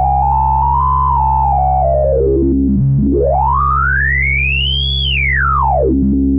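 MES Mini Red software synthesizer holding one low note on a resonant-wave oscillator while its resonance control is swept. The resonant peak glides down to the bottom about three seconds in, rises to a high, bright whine near five seconds, then falls back down.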